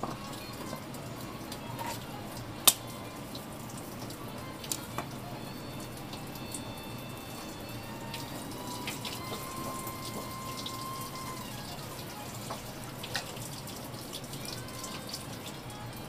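Water running from a kitchen tap into a sink, with drips and small wet clicks, and one sharp click nearly three seconds in.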